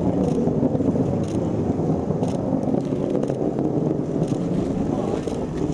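Distant Antares 230+ first stage, its two RD-181 engines heard as a deep, steady rocket rumble during ascent.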